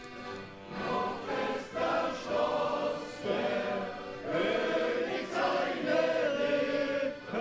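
A hall full of people singing a song together as one large group, in phrases with long held notes.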